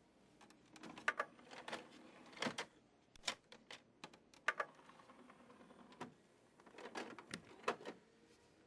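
Irregular clicks and clatter of a Philips three-disc CD mini stereo being loaded: a disc set into the open tray and the tray closing.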